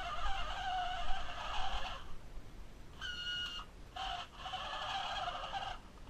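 Remote-control toy car's small electric drive motor and gears whirring in spurts, cutting out for a moment about two seconds in and again near four seconds as the throttle is let off and pressed again.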